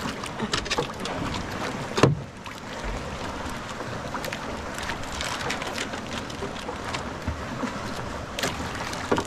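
Water lapping and splashing against the hull of a small wooden outrigger boat, a steady wash, broken by a few sharp knocks, the loudest about two seconds in.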